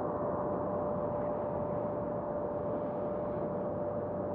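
Airliner jet engines running at idle: a steady rumble with a constant whine held on one pitch.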